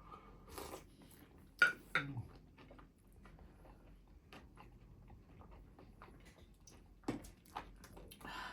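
Quiet mukbang eating sounds: chewing on momo or chicken wings with scattered small mouth and tableware clicks, and a couple of sharper clicks about one and a half to two seconds in.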